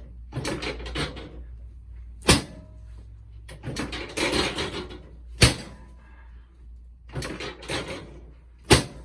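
Three sharp knocks about three seconds apart, with shuffling and rustling noise between them.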